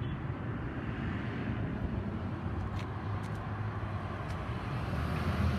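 Steady road traffic noise with a low engine hum, swelling slightly near the end as a vehicle comes closer.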